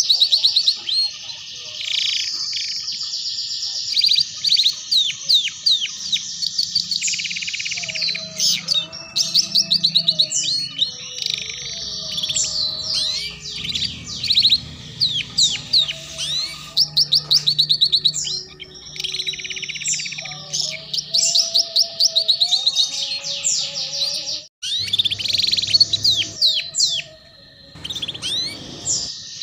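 Domestic canary singing a long, fast song of rapid trills and chattering notes, high-pitched, with a short break late on.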